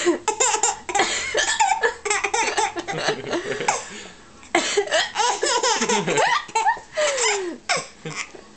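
A five-month-old baby laughing in repeated bursts, with a short break about four seconds in; he is laughing at his mother's hiccups.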